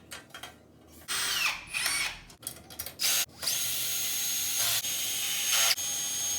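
Power drill driving a bolt into the cart frame: a few short bursts about a second in, then a steady run of about three seconds with a high whine near the end.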